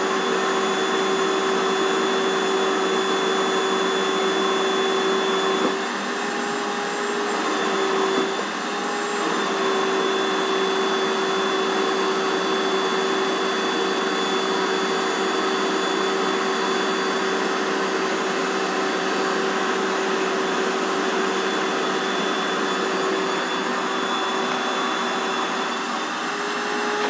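A 6-gallon, 2.25-horsepower wet/dry shop vacuum running steadily, a motor whine over the rush of air, its hose nozzle being worked over upholstery. The whine shifts in pitch and the level dips briefly about six to nine seconds in.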